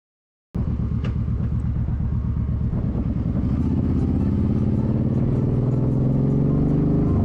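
After half a second of dead silence, the sound cuts in abruptly on a motorcycle engine running under way, a steady pulsing note. From about halfway through, its pitch climbs steadily as the bike accelerates.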